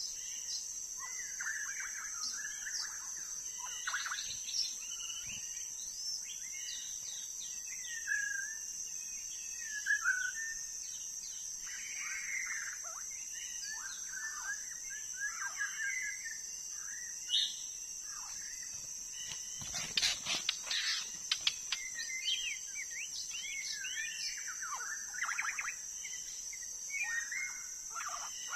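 White-rumped shama singing a varied string of whistled phrases and chirps, over a steady high-pitched drone. About twenty seconds in there is a short run of sharp clicks.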